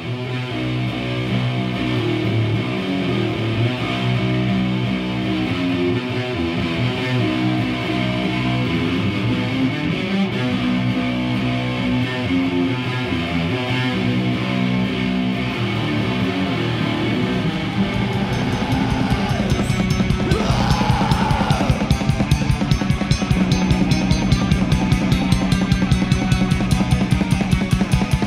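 Heavy metal music played on electric guitar and drum kit. About two-thirds of the way through, the drumming turns into fast, steady, rapid strokes under the guitars.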